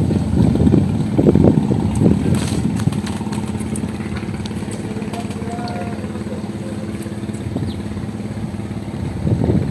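A small engine running steadily at an even idle, a low humming drone. Rough, louder noise bursts lie over it during the first three seconds.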